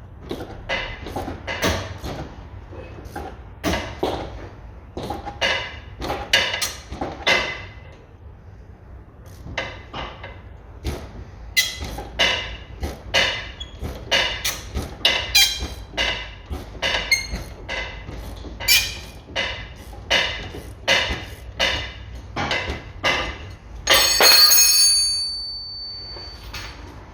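Hand ratchet clicking in repeated strokes, about one or two a second, while it undoes the upper nut of an anti-roll bar drop link. Near the end comes a loud metallic clang that rings on for a moment.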